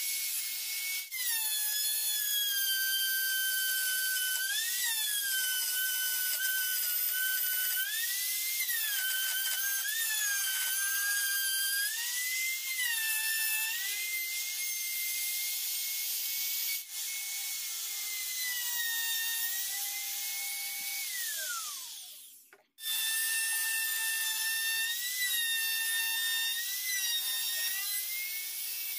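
Makita trim router running with a high whine as it routes curved slots through a wooden board. Its pitch sags again and again as the bit takes load in the wood, then recovers. About three-quarters of the way through it spins down with a falling whine, is heard running again a moment later, and starts spinning down again at the very end.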